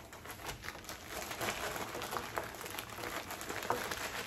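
Geek Fuel packaging bag rustling, with scattered small clicks and crackles, as it is cut and pulled open; the handling grows louder toward the end.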